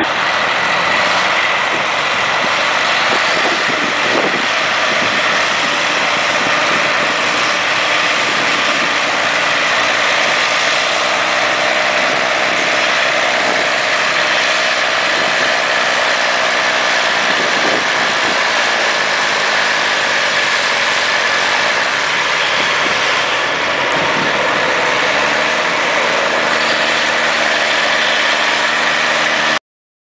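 Diesel engines of large John Deere four-wheel-drive tractors running steadily and loud, with the pitch rising and falling now and then as they rev. The sound cuts off abruptly near the end.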